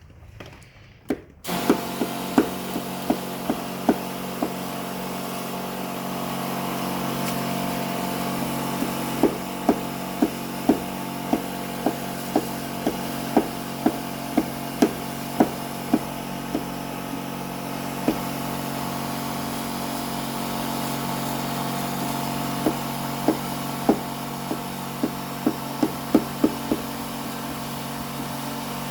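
An electric motor switches on about a second in and runs with a steady hum, with runs of sharp clicks over it, a little over half a second apart.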